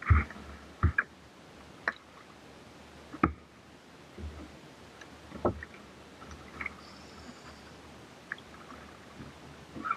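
Kayak paddling: short, irregular splashes and knocks of the paddle in the water, one every second or two.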